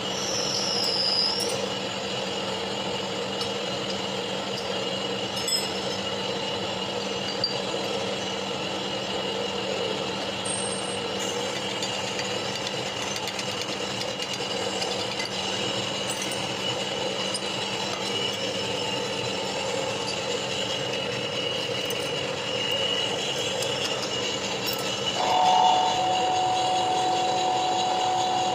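Machine tool running steadily in a workshop, a constant mechanical hum with a steady whine over it; near the end a higher tone sets in, as when cutting starts.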